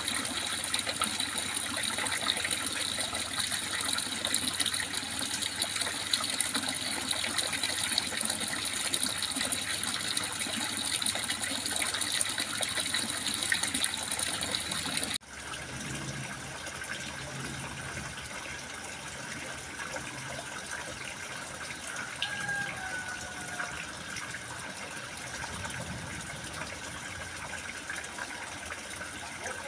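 Running water splashing and trickling steadily. About halfway through it cuts suddenly to a quieter, softer flow.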